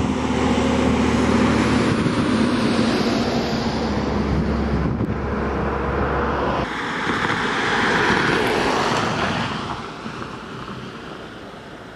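Road traffic noise beside a highway: a steady low engine hum for the first half, then a vehicle passing close by, its noise swelling to a peak about eight seconds in and fading away.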